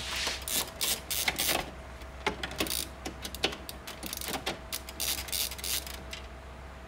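Phillips screwdriver backing small screws out of an Epson Stylus Photo 1400 printer's plastic casing: a run of small irregular clicks and ticks, thinning out after about four and a half seconds.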